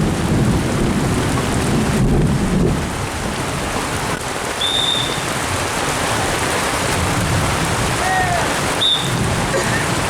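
Heavy rain hissing steadily, with a low rumble of thunder in the first few seconds. A short high whistle tone sounds twice, about halfway and near the end.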